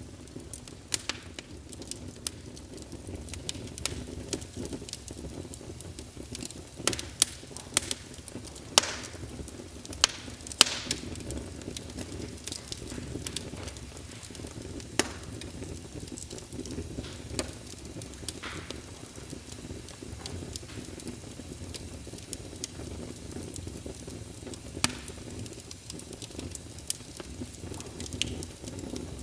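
A fire burning: a steady low rush of flames, with sharp crackles and pops scattered throughout and a run of louder pops about seven to eleven seconds in.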